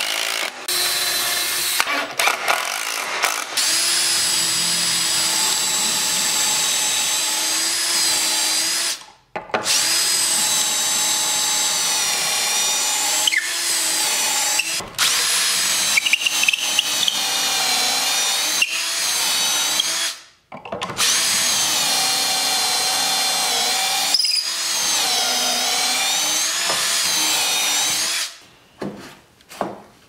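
Cordless drill motor whining in three long runs several seconds each, its pitch wavering under load as it bores pocket holes through pine boards held in a pocket-hole jig. Shorter bursts near the start come from driving screws.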